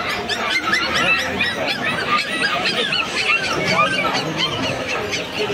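Many caged birds chirping and squawking at once, a dense overlapping chatter of short high calls.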